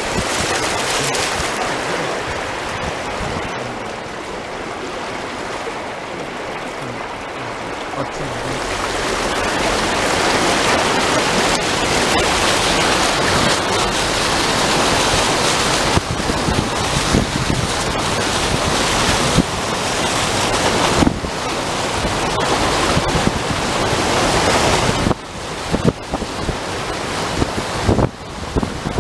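A dense, steady rushing noise of the storm, swelling from about eight seconds in and dropping away briefly near the end.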